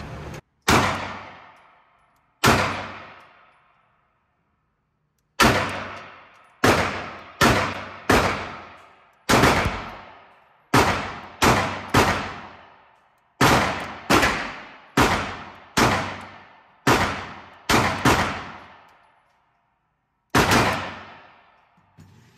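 Sig Sauer P320 pistol fired at an indoor range: about twenty shots, some single and some in quick pairs and strings. Each shot is followed by a short ringing tail off the range walls.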